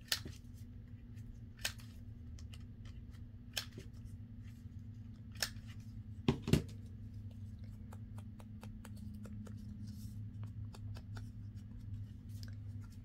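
Handheld paper punch pressed through a cardstock tag: a few sharp clicks, the loudest a quick pair about six and a half seconds in, over a steady low room hum.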